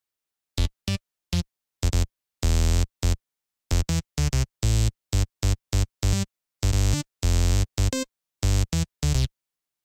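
Serum software synth bass patch playing a looped rhythmic pattern of short stabs and a few longer held notes, with silent gaps between them. The tone is bright, with the patch run through Serum's flanger effect.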